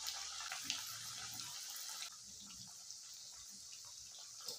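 Green chickpea vadas deep-frying in hot oil in a kadhai: a faint, steady sizzle with small crackles, easing slightly about two seconds in.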